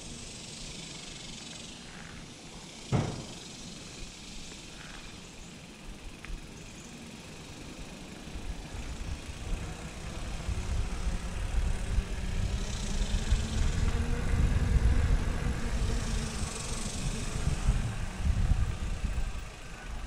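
Mountain bike rolling along a paved path: tyre hiss and low wind rumble on the camera microphone, the rumble growing heavier about halfway through as speed picks up. A sharp knock about three seconds in, and short stretches of rear-hub freewheel buzz while coasting.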